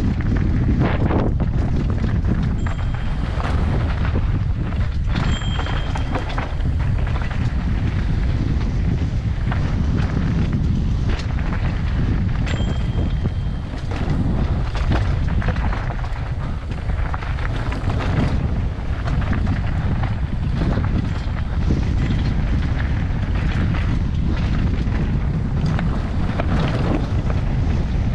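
Mountain bike riding fast down a rocky dirt trail: heavy wind rush on the microphone over a constant clatter and rattle of tyres, chain and suspension on gravel and rocks. Several times a brief high-pitched squeal cuts in, the disc brakes squealing as the rider brakes.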